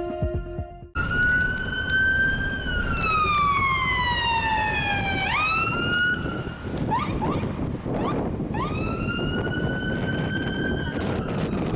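Emergency vehicle siren wailing: the pitch sweeps up, slides slowly down over a few seconds and sweeps back up, with a few short quick yelps in between. It starts about a second in.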